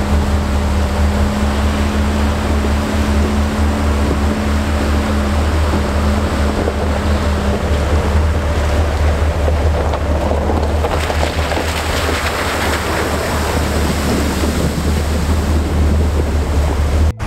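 Toyota Land Cruiser driving through a shallow muddy water crossing, its engine running under the splash and spray of water off the tyres. Heavy wind rumbles on the microphone, and the splashing grows louder a little past halfway.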